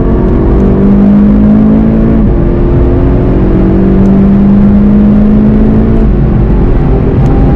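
VW Golf GTI TCR's turbocharged four-cylinder engine pulling hard under full acceleration, its pitch climbing gently and dropping at two upshifts, about two seconds in and about six seconds in.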